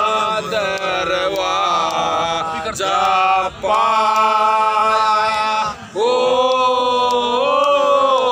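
Several men singing loudly together without instruments, a folk-style chant drawn out in long held notes. There are short breath breaks about three and a half and six seconds in.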